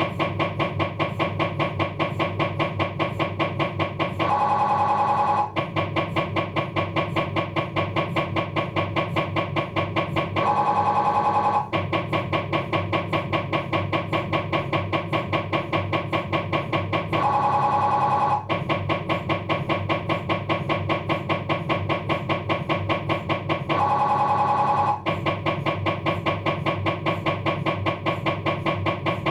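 Philips 1.5 T MRI scanner running an axial diffusion-weighted abdominal sequence with navigator: a rapid, even train of buzzing pulses, about three a second, with several fixed tones. About every six to seven seconds the train gives way for roughly a second to a steadier, higher tone.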